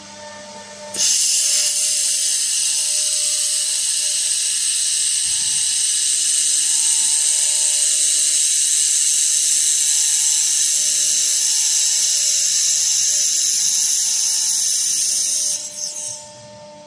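Handheld fiber laser welding gun running a weld along a sheet-metal corner joint: a loud, steady high hiss that starts about a second in and cuts off suddenly near the end. A faint steady machine hum lies underneath.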